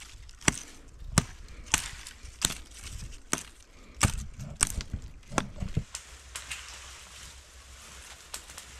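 Hatchet chopping saplings and branches: about eight sharp blade strikes, roughly one every two-thirds of a second, stopping a little before six seconds in.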